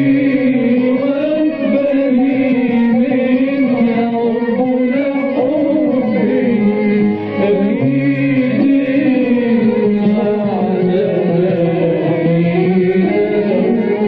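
Arabic devotional hymn: a male voice sings long, ornamented lines over instrumental accompaniment.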